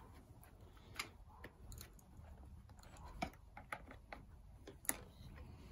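Faint scattered clicks and light taps of hand-handling at the plastic oil-tank filler of a Stihl chainsaw, as the tank's oil filter is got at.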